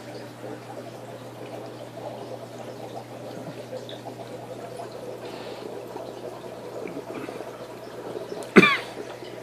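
Aquarium water trickling and bubbling over a steady low hum, with one short, sharp, loud sound near the end.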